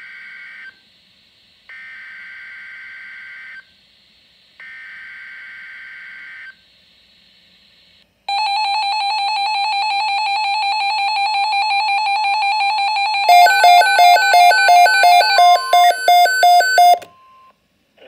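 Weather alert radios sounding an Emergency Alert System alert for a severe thunderstorm watch: three buzzy, warbling SAME data bursts about two seconds each with a second's gap between, then a loud steady alert tone, with rapid electronic alarm beeps (about three a second) joining about halfway through. Everything cuts off abruptly about a second before the end.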